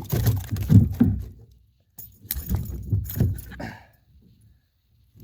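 Two bursts of thrashing and rattling: a hooked bowfin flapping while being unhooked, the jig and hook jangling.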